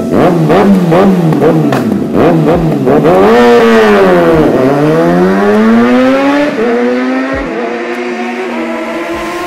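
Kawasaki superbike engine, running with its exhaust dB killer baffle removed, so it is loud. It is blipped in quick revs about twice a second, then accelerates hard away through the gears with a drop in pitch at a gear change about four and a half seconds in, and fades as the bike rides off.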